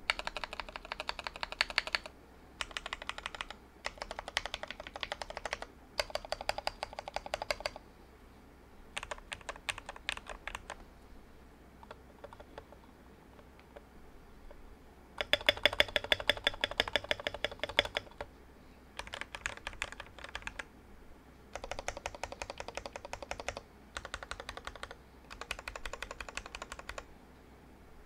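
Typing on a Protozoa P.01 mechanical keyboard with lubed and filmed Tealios V2 linear switches on 45 g springs, an aluminium plate and only case foam inside. The keys are struck in quick runs of about two seconds with short pauses between them, and the longest, loudest run comes about midway.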